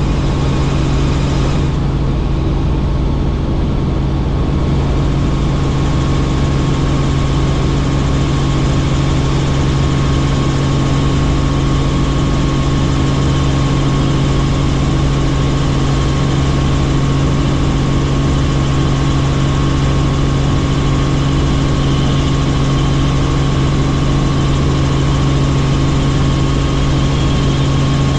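Helicopter in flight: a steady, unchanging drone of rotor and turbine with a constant low hum.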